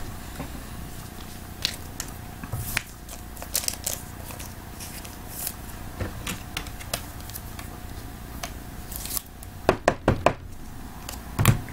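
Thick Immaculate Baseball trading cards handled by hand: cards slide and tap against each other with scattered short clicks and rustles, and a quick run of taps about ten seconds in.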